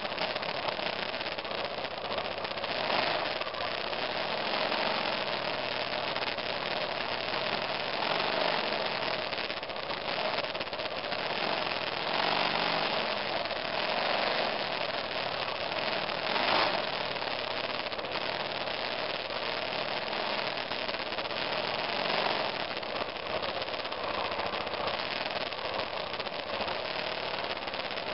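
Single-cylinder engine of a 2002 BMW F 650 GS Dakar running as the bike rides a rough dirt trail, its note wavering with the throttle. Steady wind and rattle noise on the mirror-mounted camera runs throughout, with now and then a short louder knock.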